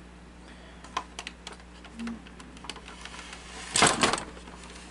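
Scattered light clicks and taps of hands handling the opened Betamax VCR, with a louder brief rattle about four seconds in, over a faint steady hum.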